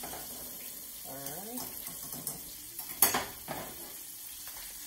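Chicken tenders frying in oil in a skillet, a steady sizzle, while a spoon stirs glaze in a stainless steel saucepan. There is one sharp metal clank about three seconds in, with a lighter one just after.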